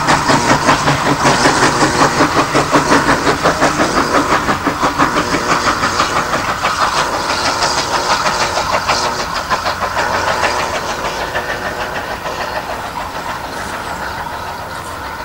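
Steam locomotive pulling a train away, its exhaust beats in a quick, even rhythm that fade steadily as it recedes.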